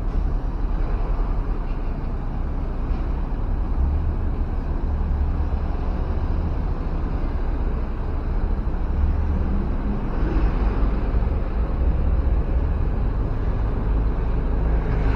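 Bus diesel engine running with a steady low rumble, with a little more hiss about ten seconds in.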